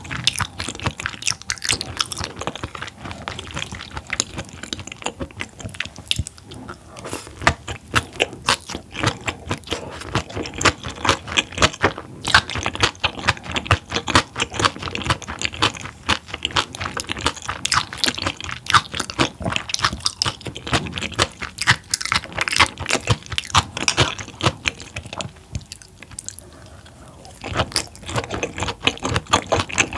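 Close-miked chewing of raw large-eyed herring (밴댕이회) sashimi: rapid, dense mouth clicks, with a short lull a little before the end.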